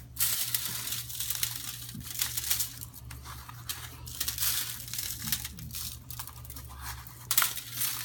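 Aluminium foil crinkling and rustling as gloved hands sprinkle dry rub from a plastic tub onto ribs laid on it, with a louder crinkle a little past seven seconds in. A low steady hum runs underneath.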